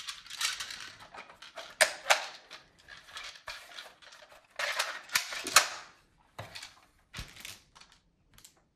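Plastic toy rifle being handled: a run of clicks, snaps and short rattles as its parts are worked and it is set down and picked up, with the sharpest snaps about two seconds in and again about five and a half seconds in.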